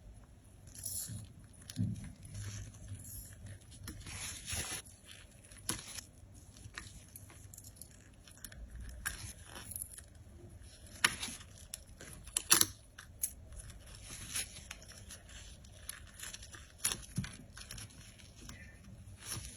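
Handmade squeeze toy being squeezed and handled: irregular crunching and crackling clicks, with a few sharper snaps standing out, about eleven seconds in, again a second and a half later, and near the end.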